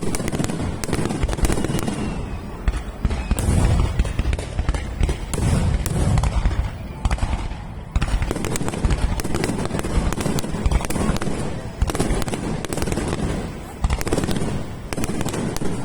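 Fireworks finale barrage: shells bursting in rapid, overlapping succession, deep booms mixed with sharp crackling, with no break between them.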